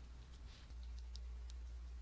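A few faint, light clicks of small brass pipe fittings being handled in a metal bench vise, over a low steady hum that comes in about a third of the way through.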